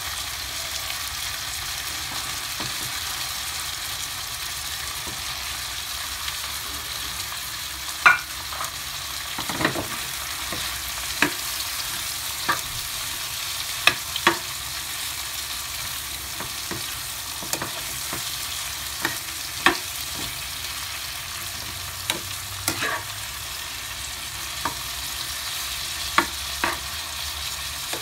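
Shrimp sizzling in butter in a frying pan, a steady hiss. From about eight seconds in, a metal utensil knocks and scrapes against the pan now and then as the shrimp are turned.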